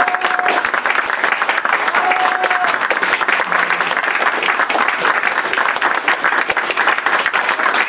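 Audience and cast applauding steadily, many hands clapping at once.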